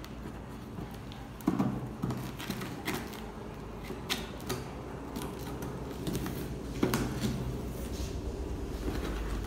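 A knife slitting the packing tape on a cardboard shipping box: irregular scrapes and sharp taps of the blade on the cardboard.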